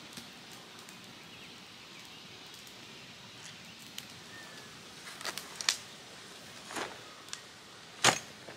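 Wood campfire crackling in a steel fire ring: scattered sharp pops over a quiet outdoor background, with a louder knock near the end.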